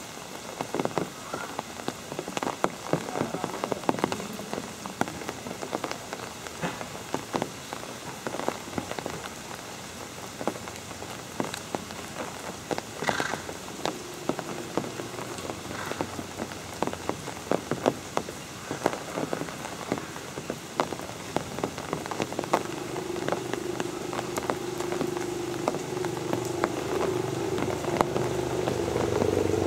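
Dense, irregular ticks and taps over a steady hiss, with a low steady hum that comes in about two-thirds of the way through and grows louder.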